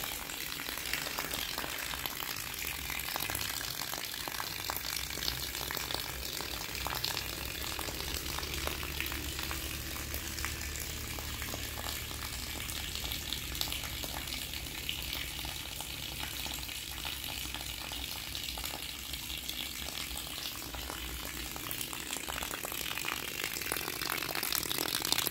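Steady rain falling on wet ground and puddles: a dense, even patter of drops.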